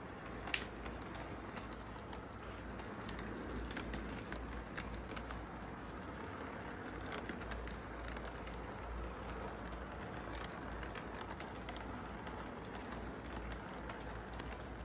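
Toy freight train cars rolling round a model railway track: a steady rumble with scattered clicks of wheels over rail joints, and a sharp click about half a second in.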